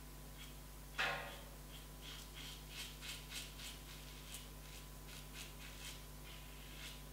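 Gillette double-edged safety razor scraping through lathered stubble on the cheek: a string of short, rasping strokes, about two or three a second, with a louder scrape about a second in.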